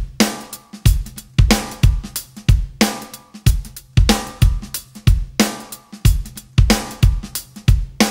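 Background music: a drum kit alone playing a steady beat of about two strokes a second, bass drum and snare alternating under ringing cymbals.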